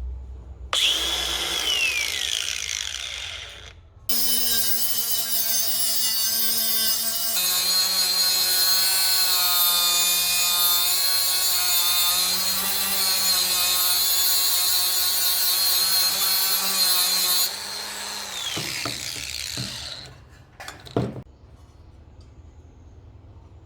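48V cordless battery angle grinder: a brief run about a second in that winds down, then about thirteen seconds of the disc cutting under load with a steady high whine and a harsh hiss, its pitch dropping a little partway through. The disc then runs lighter and spins down, with a click near the end.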